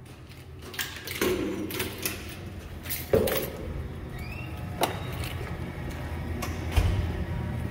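Footsteps and scattered clicks and knocks as a person carrying a tripod passes through a doorway, with a short rising squeak about four seconds in. A low steady hum runs underneath.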